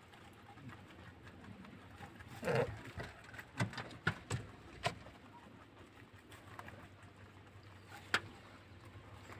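Rabbits feeding on fresh grass: faint rustling and scattered sharp clicks of chewing and stems being moved, busiest between about three and a half and five seconds in. A short, fuller sound of about half a second comes about two and a half seconds in.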